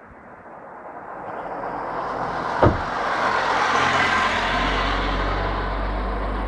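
A road vehicle passing: a rushing noise that swells to a peak about four seconds in and then slowly eases off. A single sharp knock comes near the middle, and a low steady rumble joins in the second half.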